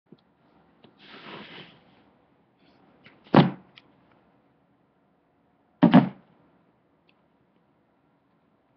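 A soft rustle, then two loud thuds about two and a half seconds apart, the second a quick double knock.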